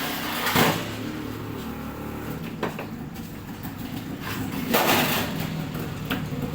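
Handling noise on a window-type air conditioner's casing: two scraping rushes, about half a second in and near five seconds in, and a few knocks, over a steady low hum.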